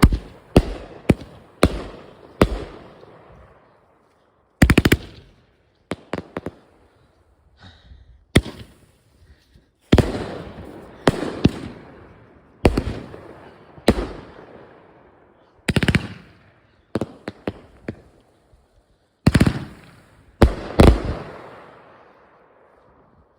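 Fireworks going off: a series of loud, sharp bangs at irregular intervals, some coming in quick pairs or triples, each trailing off in a fading echo.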